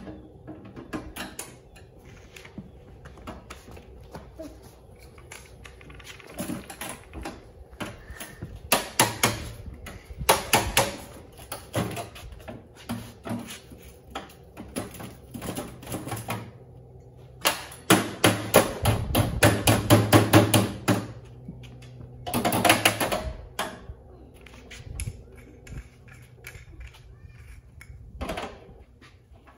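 A hammer striking a screwdriver held like a chisel against a steel electrical panel enclosure: runs of sharp metallic taps, with a dense burst of rapid strikes a little past the middle.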